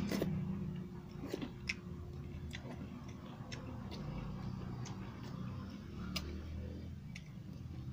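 A man chewing a mouthful of rice and chicken curry: scattered short clicks and smacks from the mouth at irregular intervals, over a low steady hum.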